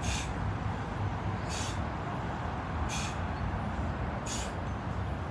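A person breathing out hard in short hisses, about one every second and a half, in time with the reps of a bodyweight core exercise, over a steady low rumble.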